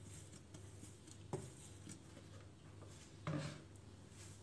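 Quiet handling sounds as risen yeast dough is tipped out of a plastic container onto the worktop: a light click about a second in and a soft thud a little past three seconds.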